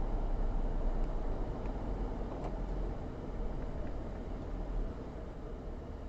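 Steady low road and engine rumble inside a moving car's cabin, as picked up by a dashcam, easing off slightly after about three seconds, with a few faint ticks.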